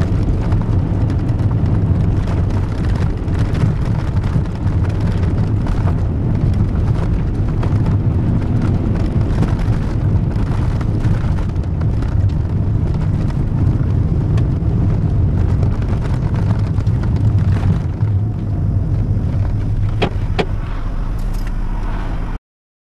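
Cabin sound of a VW 1.9 turbodiesel car on the move: a steady low engine drone with tyre noise over a gravel road. Near the end the sound cuts off suddenly.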